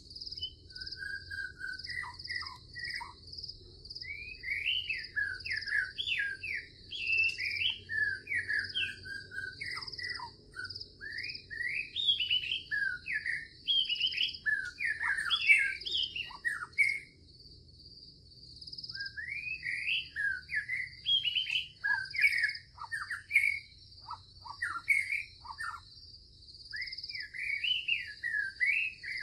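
Songbirds chirping and singing in quick, varied phrases, with a brief lull a little past the middle, over a steady, high-pitched insect trill like crickets.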